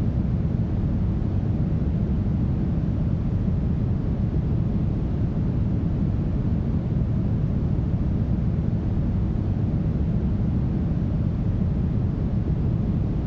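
Steady brown noise: a deep, even hiss, heaviest in the low end and fading toward the highs, with no change or events.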